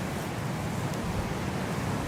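Winter wind, a steady low rushing noise with no gusts or breaks.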